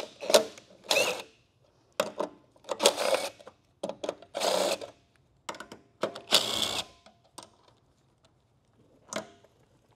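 Aerosol lubricant sprayed onto hinge bolts in several short bursts, with light metal clicks of the bolts being handled between sprays.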